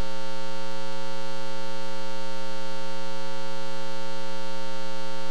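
Steady electrical hum and buzz: several steady tones stacked on top of one another, holding constant throughout.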